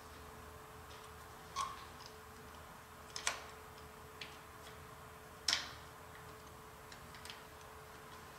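Hand tools clicking and clinking against the steel spindle nose of a horizontal boring mill: four or five short, sharp metallic clicks, the loudest a little past halfway, over a faint steady hum.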